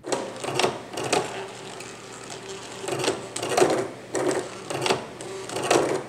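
Stepper motors of a Raspberry Pi Rubik's Cube-solving robot turning the cube's faces, a rapid series of short whirring turns about every half second, with a brief lull about two seconds in.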